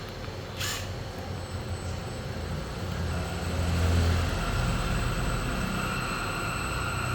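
Electric motor running on a variable-frequency drive: a steady low hum with a thin high electrical whine that grows louder partway through. A short hiss comes about half a second in.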